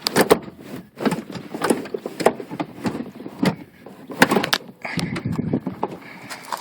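Subaru Impreza rear seat back being lifted and worked free of its hooks: irregular knocks, clunks and scraping rustles of the seat against the car's interior trim.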